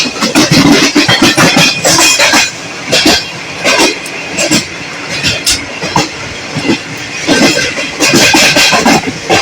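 Passenger train running on the rails, its wheels clattering in quick, uneven clusters of knocks over the track.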